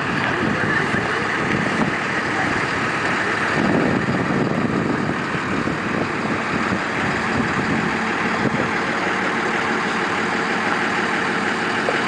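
Engines idling steadily, an even, unchanging running noise with no revving.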